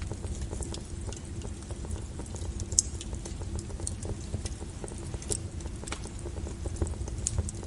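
Wood fire crackling: irregular sharp pops and snaps over a steady low rumble of flames, the loudest snap a little under three seconds in.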